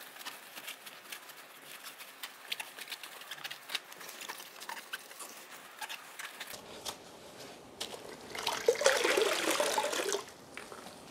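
A wash mitt rubbing over a chrome wheel and tyre with faint scattered ticks, then, about eight seconds in, the mitt plunged into a bucket of rinse water and squeezed out, water splashing and streaming back into the bucket for about two seconds, the loudest part.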